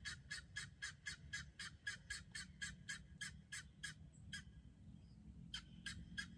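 Guineafowl calling: a rapid run of evenly spaced sharp notes, about four to five a second, that breaks off a little past halfway and starts again near the end.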